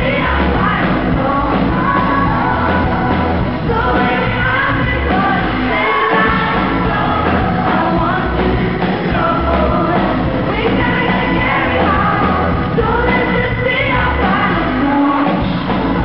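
Live electropop band playing: a female lead singer over keyboards and a pulsing heavy bass beat, heard from within the audience in a large hall.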